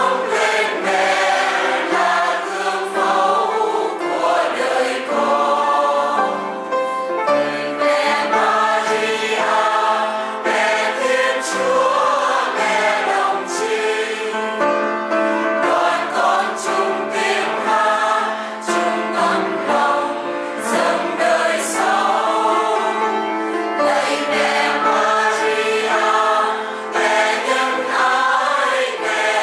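A choir of many voices singing a hymn together, at the close of Mass.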